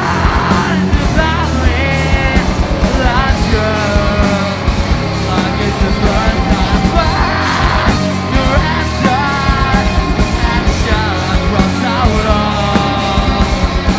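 Live rock band playing loud: a fast, driving drum beat and electric guitar, with the singer's voice over the top.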